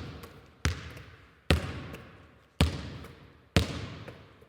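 A basketball bounced on a hard floor in slow dribbles, about one bounce a second, four times, each bounce echoing and dying away.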